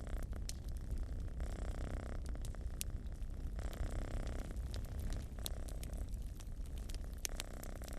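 Domestic cat purring steadily, its purr swelling and fading with each breath, while a wood fire crackles with scattered sharp pops.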